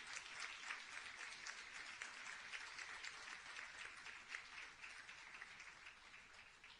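Audience and panel applauding: dense, steady clapping that fades away toward the end.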